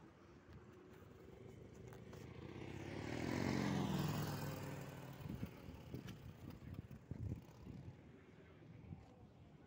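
A motor vehicle drives past close by: its engine and tyres grow louder, peak about four seconds in, then fade away.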